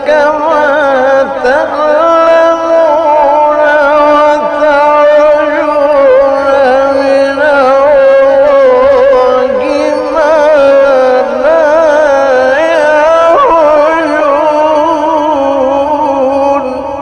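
A man reciting the Quran in the melodic mujawwad style, drawing out long ornamented melismatic lines with a quick wavering pitch and only brief breaks.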